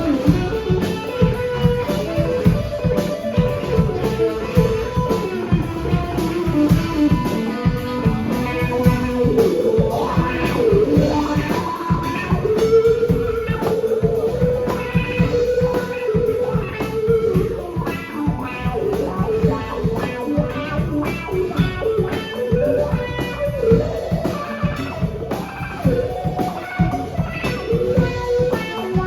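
Live rock band playing an instrumental passage: a guitar plays sustained, bending lead notes over steady drums.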